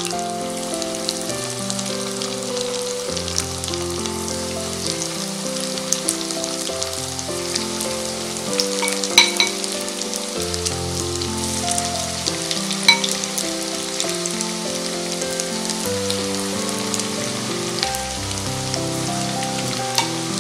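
Rice-and-gram-flour pakoras deep-frying in hot oil in a kadai, a steady crackling sizzle, with two sharp clicks about halfway through and again a few seconds later. Background music with slow, changing notes plays underneath.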